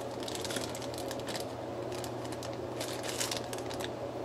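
Clear plastic bag of earphones crinkling as it is handled and its sealed end fingered: soft, irregular rustles coming a few times a second.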